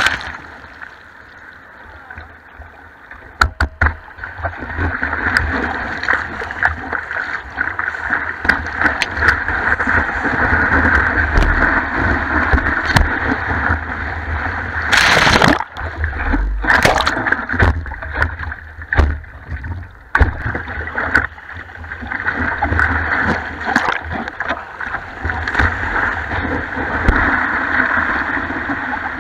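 Surf whitewater rushing around a surfboard as it rides broken waves, heard from a camera on the board's nose, with several sharp splashes of water against the camera; the biggest splash comes about fifteen seconds in.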